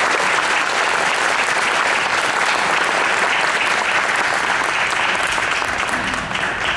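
Audience applauding, a dense, steady clapping that begins to die down near the end.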